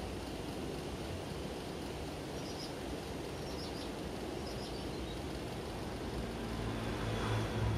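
Steady low background noise, with a few short, high bird chirps in the middle and a low engine hum growing louder near the end.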